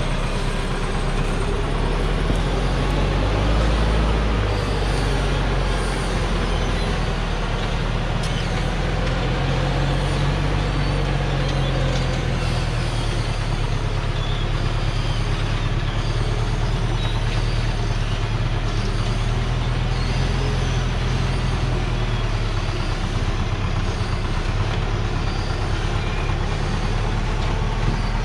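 Hoa Mai truck's diesel engine running steadily at low revs as the truck, heavily loaded with acacia logs, crawls down a steep muddy bend; the engine note strengthens a little about ten seconds in.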